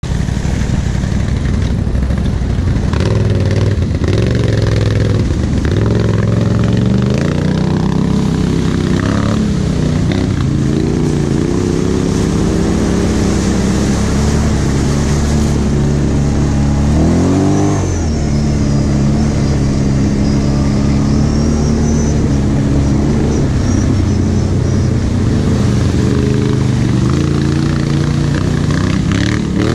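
ATV engine running under way, its revs rising and falling with the throttle, with one sharp rev-up a little past halfway through.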